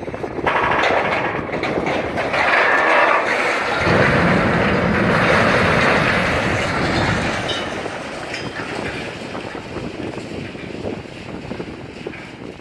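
Silo wall being broken open during demolition: a long crashing, grinding noise full of clanks that starts about half a second in, is heaviest with a deep rumble from about four to seven seconds, then eases off.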